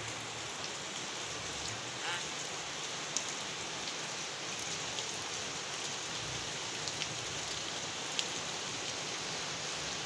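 Steady rain falling on wet gravel and a wire bird cage, with a few sharp ticks of single drops.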